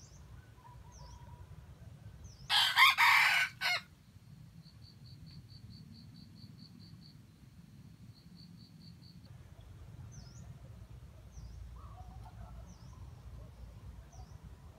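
A red junglefowl rooster crows once, a few seconds in, a loud crow lasting just over a second. Small birds chirp faintly throughout, and for several seconds afterwards a thin high trill pulses at about five beats a second.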